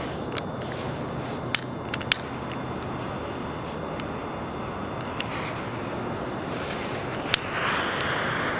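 Steady outdoor rush of wind and a wood fire burning in a fire pit, with about six sharp pops scattered through; a louder hiss comes in near the end.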